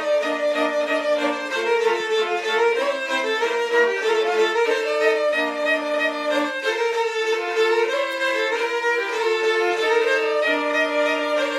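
Two violins playing a Romanian folk tune together, one carrying a moving melody over lower held notes from the other.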